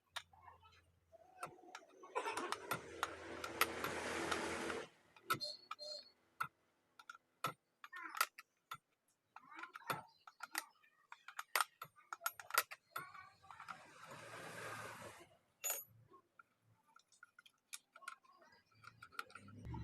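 Hand tools working the two bar nuts off a 58 cc petrol chainsaw's side cover: scattered metallic clicks and clinks, with two longer stretches of scraping, about two seconds in and again around fourteen seconds in.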